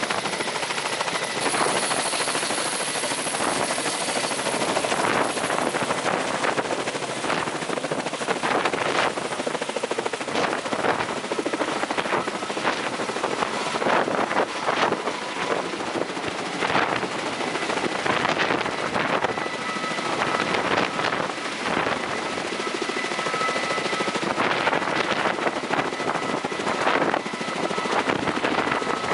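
Kamov Ka-32 twin-turbine helicopter with coaxial rotors lifting off and climbing away: a dense rotor wash with a rapid blade beat over a steady turbine whine. The rotor downwash buffets the microphone.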